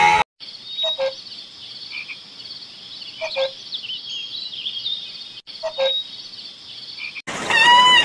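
Banded ground-cuckoo in rainforest giving short, low two-note calls, three in all about every two and a half seconds, over a steady high insect buzz and scattered small bird chirps. Near the end the sound cuts abruptly to a louder, repeated high crying call.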